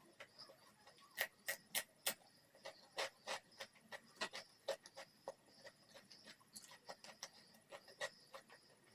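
Close-miked eating sounds: chewing with irregular wet mouth clicks and smacks, a few louder ones close together about a second in, then scattered softer clicks.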